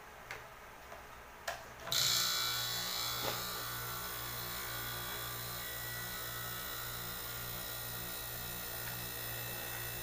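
A few light clicks, then about two seconds in a hermetic refrigeration compressor, used as a flushing pump, starts and runs steadily with a low pulsing hum and a hiss of air, pushing air through the refrigerator's capillary tube to build up pressure.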